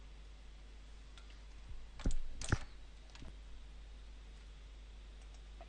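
Two sharp computer mouse clicks about two seconds in, less than half a second apart, then a fainter click, over a low steady hum.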